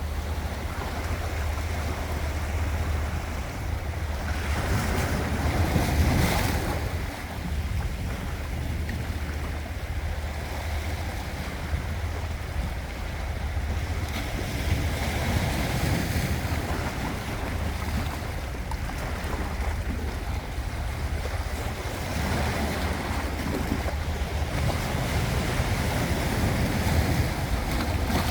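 Sea waves washing in and breaking on the shore as a continuous rush. One larger wave swells and crashes about six seconds in, then falls away quickly.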